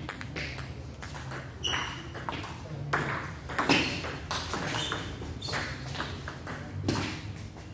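Table tennis ball knocks: a ball struck by rubber paddles and bouncing on the tables, making sharp, irregular clicks about two a second.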